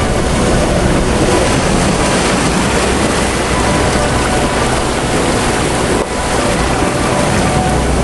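Steady rushing of muddy floodwater cascading over terrace walls and down an embankment, with a brief dip about six seconds in.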